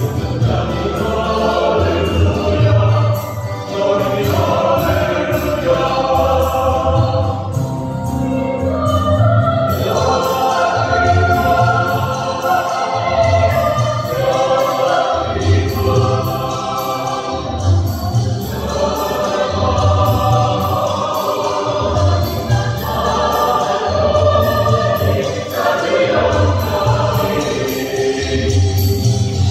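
A mixed choir of women's and men's voices singing a hymn together, with a steady light beat ticking along in the accompaniment.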